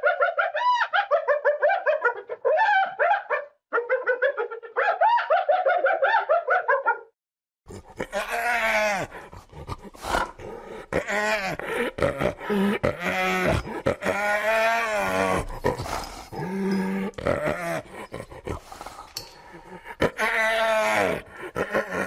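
Spotted hyenas giggling: rapid, high-pitched, bouncing yelps in two runs with a short break at about three and a half seconds. After a brief silence at about seven seconds, a noisier recording of lower hyena calls that rise and fall takes over, with a rough background noise.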